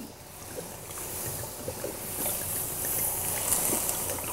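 Red wine poured from a bottle into a stainless steel stockpot of meat and vegetables: a steady splashing stream that grows louder as it goes.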